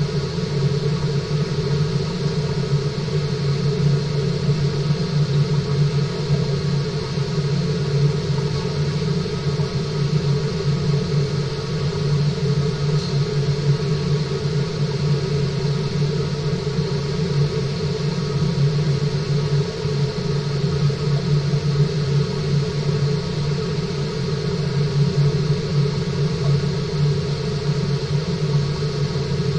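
Steady low machine hum and rumble from a fish-tank's water circulation equipment, with several constant tones above it and no change throughout.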